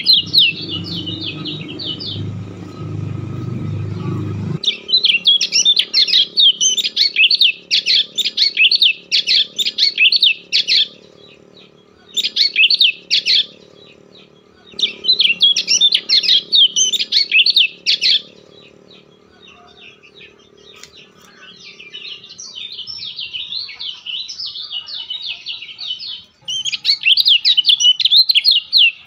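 A bird chirping and twittering rapidly in bursts of a few seconds, with short pauses between. A low rumbling noise underneath stops abruptly about four and a half seconds in.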